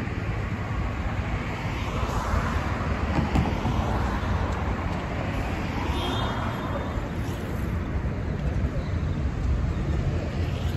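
Street traffic passing on a busy avenue: a steady rumble of road noise, with cars swelling up and passing by twice.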